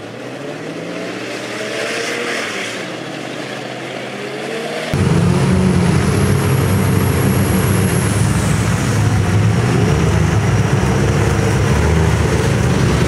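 Mud trucks' engines revving, their pitch rising and falling. About five seconds in the sound jumps abruptly to a much louder, close, low engine rumble from a Dodge Ram 2500 pickup driving through the mud.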